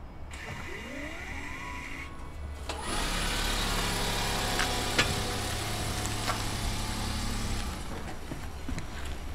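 Nissan e-POWER car: a whine rising in pitch about a second in, then a steady low running hum with a sharp click midway, easing off near the end.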